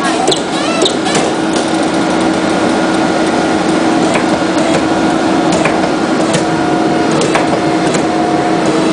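CRU 2500B briquette press running steadily with a constant hum, broken by a few sharp clicks.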